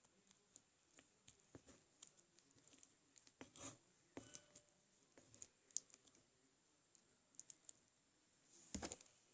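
Faint, scattered small clicks and taps of a slime-making container, stirring stick and paint being handled, with a slightly louder cluster of taps near the end.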